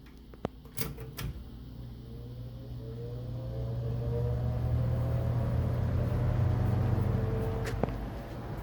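A 1988–89 Galaxy 3-speed box fan switched on at its low setting: a few switch clicks in the first second or so, then the motor's hum and a whine that rises in pitch as the blades spin up over several seconds before running steadily. A single click comes near the end.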